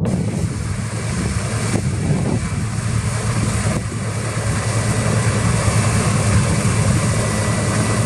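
New Holland CX860 combine harvester working close by as it cuts wheat: a steady low engine drone with a dense hiss of the machinery over it.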